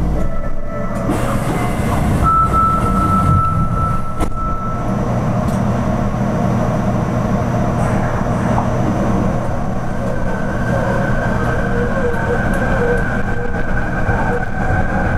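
Fukuoka City Subway Nanakuma Line linear-motor train heard from inside its rear cab: a steady rumble, with a high steady motor whine setting in about two-thirds of the way through.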